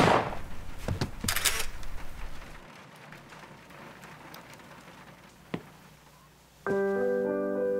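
A single handgun shot cracks right at the start and its echo dies away, followed about a second later by a few more knocks. Piano music comes in near the end.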